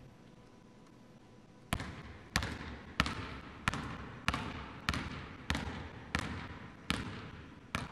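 A basketball being dribbled on a hardwood gym floor. It starts a little under two seconds in and bounces about ten times at a steady pace of roughly three bounces every two seconds, each one echoing briefly in the empty gym.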